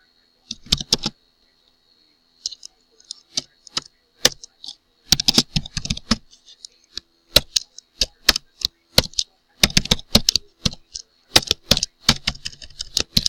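Typing on a computer keyboard: irregular runs of key clicks broken by short pauses, with a faint steady high whine underneath.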